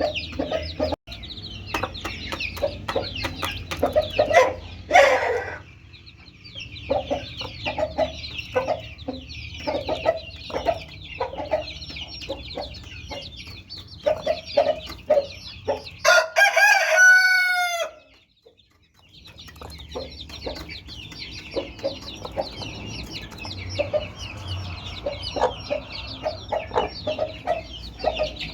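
Chicks peeping constantly while an aseel hen clucks. About 16 s in, a rooster crows loudly for about two seconds, then the sound briefly drops out.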